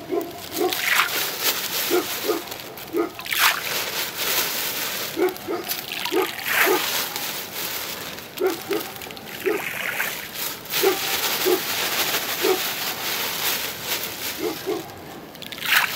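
Handfuls of boiled wheat groundbait thrown into a river close to the bank, splashing onto the water several times. Short plops of grains come in between the splashes.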